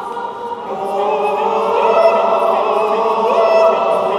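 Mixed choir of women's and men's voices singing a cappella, holding sustained chords that swell in loudness about a second in.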